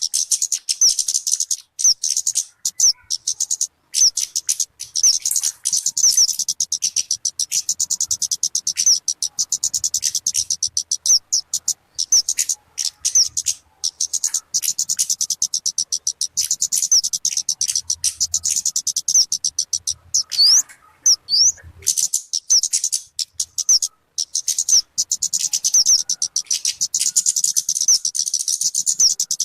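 Talokan (kemade) bird calling: a fast, unbroken run of high-pitched chirps and twitters. About two-thirds of the way through it breaks off into a few separate notes, then carries on.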